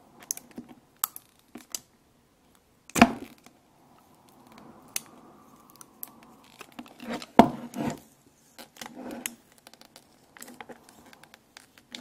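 Clear plastic seal being picked at and peeled off the side of an iPod Touch box: scattered crackles and scratches of plastic under the fingers, a sticky seal that is tight to come off, with two sharper clicks about three and seven seconds in.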